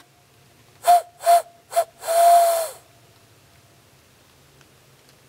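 Hand-blown barred owl call, made by blowing into cupped hands: three short hoots in quick succession, then one longer drawn-out hoot, each a single low note with a lot of breath noise.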